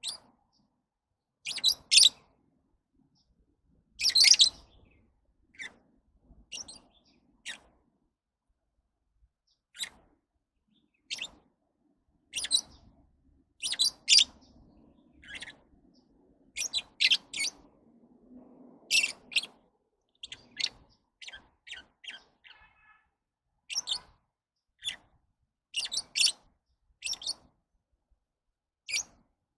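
Lovebirds chirping: short, sharp, high-pitched calls coming singly or in quick pairs at irregular intervals, with gaps of a second or more between them.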